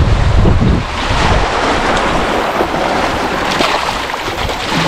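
Wind buffeting the microphone, heaviest in the first second and a half, over a steady rush of wind and small waves washing on a sandy lake beach.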